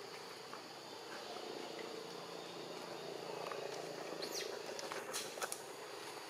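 Monkey making a low, drawn-out call that builds and fades over a few seconds, with a few sharp high sounds near the end, over a steady insect drone.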